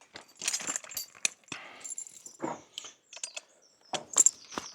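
Irregular clinks and jingles of metal harness fittings, with knocks and shuffling, as a Percheron draught horse stretches in its harness. The loudest is a sharp pair of clinks about four seconds in.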